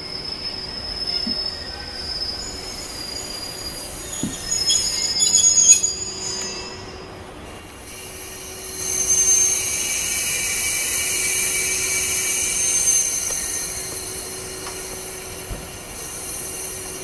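Freight train hauled by an EF81 electric locomotive, its wheels squealing as it brakes to a stop: a high-pitched squeal in several tones, with a first loud burst about five seconds in and a long steady squeal through the second half that stops at the end as the train halts.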